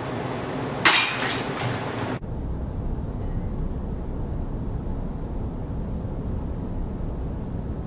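A thrown disc golf disc striking the netted practice target: a sudden clattering crash about a second in that lasts just over a second and cuts off abruptly. After it comes a steady low rumbling room noise.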